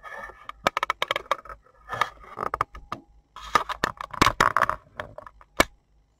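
Knitting-machine carriage being worked across the needle bed to knit a row, giving several bursts of clattering clicks and a single sharp click near the end.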